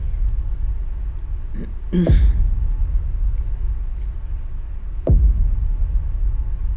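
Deep bass booms, each dropping in pitch, struck about every three seconds over a steady low rumble: the cinematic opening of a music video's soundtrack.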